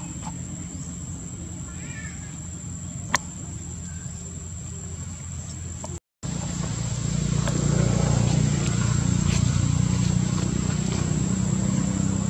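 Outdoor background: a steady low hum with a constant high-pitched whine over it. There is a single faint click about three seconds in, and a brief dropout to silence just after six seconds. After the dropout the low hum is louder.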